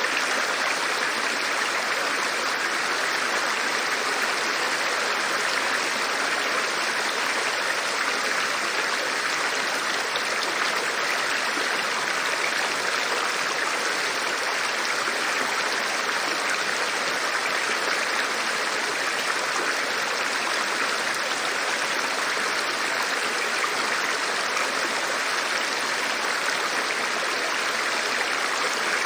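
River water rushing steadily: an even, unbroken hiss of flowing water with no separate splashes or drips.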